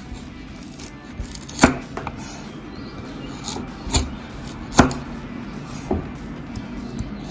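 Kitchen knife striking a wooden chopping board: a few sharp, irregularly spaced chops.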